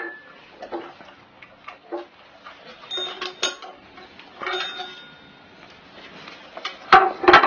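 Chrome desk service bell pressed over and over by a miniature schnauzer's paw: a string of taps and short dings, a few ringing on briefly, with the loudest strikes near the end.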